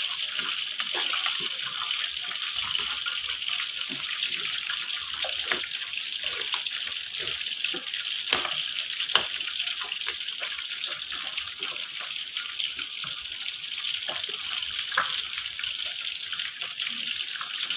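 Kitchen knife slicing ginger on a wooden chopping board: irregular sharp taps of the blade against the board, over a steady hiss.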